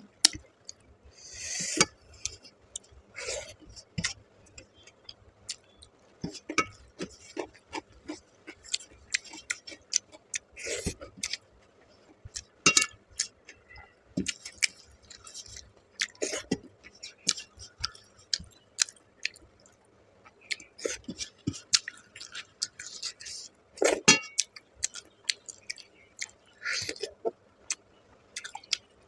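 Eating rice and curry by hand: fingers scraping and gathering wet rice on a steel plate, with chewing sounds, in many short, irregular clicks and smacks.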